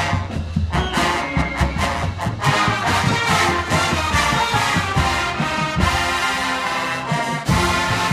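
Full marching band playing: massed brass, including sousaphones, holding loud sustained chords over regular percussion hits.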